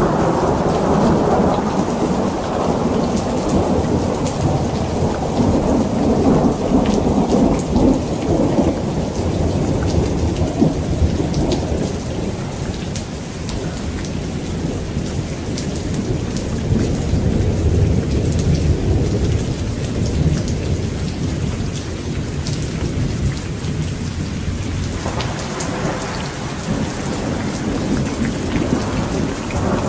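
Steady rain with rolling thunder. A long rumble fades over the first ten seconds or so, a deeper one rolls through the middle, and another swells near the end.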